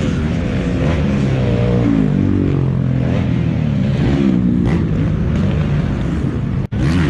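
Motocross dirt bike engines revving on the track, their pitch rising and falling as the throttles open and close, with more than one engine overlapping. The sound drops out for an instant near the end.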